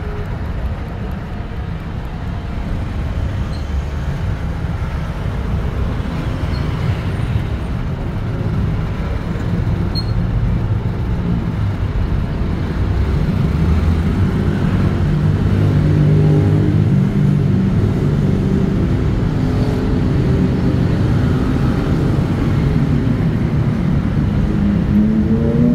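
Low, steady rumble of a motor vehicle's engine running close by, growing gradually louder. Near the end its note rises as the engine revs up.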